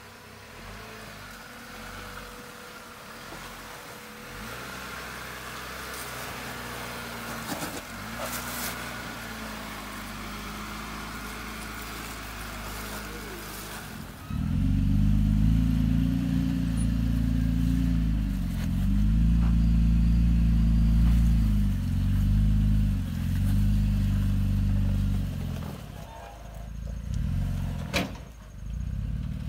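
Jeep Wrangler JL engine pulling steadily as it crawls over rocks. About halfway through, the engine is much louder and close, revving up and down several times as the rear tyres spin and throw sand.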